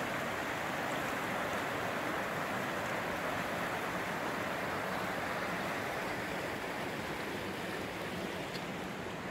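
Fast-flowing beck in spate rushing over stones in its stone-walled channel: a steady rush of water, a little fainter near the end.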